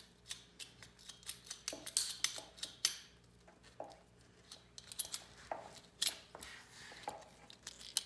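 Hand-held PEX tubing cutter squeezed repeatedly around blue PEX pipe, giving irregular sharp clicks and snips as its blade works through the tubing.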